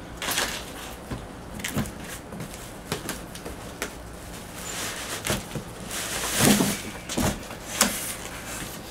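Cardboard box and plastic wrapping being handled: scattered rustles, crinkles and light knocks, loudest about six to seven seconds in.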